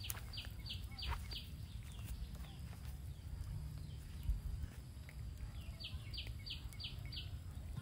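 A bird calling in two runs of short, quick, falling whistled notes: four about half a second in, then five more near the end. Under it runs a low rumble, with one dull thump just past the middle.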